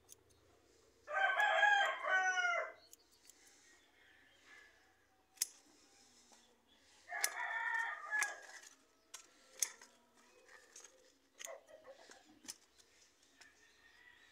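A rooster crowing twice, each crow about a second and a half long, the second one about six seconds after the first. Scattered sharp clicks fall in between and after.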